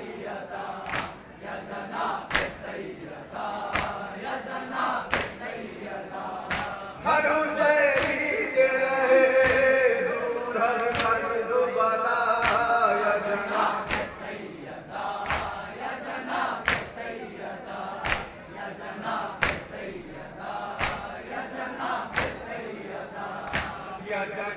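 Men chanting a nauha, a Muharram lament, in unison, their voices swelling louder in the middle. A sharp slap about every second and a half keeps time: the group's matam, rhythmic chest-beating.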